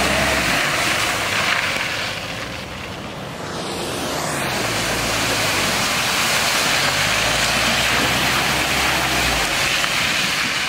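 Four-wheel drives ploughing through muddy puddles one after another: engines running under load and tyres splashing through water and mud. The sound dips a couple of seconds in, then swells again as the second vehicle comes through.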